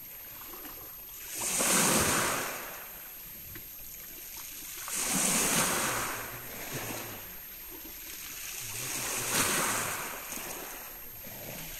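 Sea waves breaking and washing ashore: three surges that swell and fade a few seconds apart.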